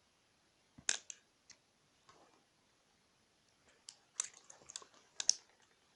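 Small scissors snipping at paracord ends: a few sharp clicks about a second in, then a quick run of snips and handling rustles near the end.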